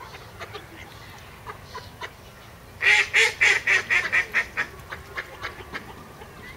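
Mallard ducks calling, with scattered soft quacks and, about three seconds in, a loud run of about eight quick quacks that get quieter one after another.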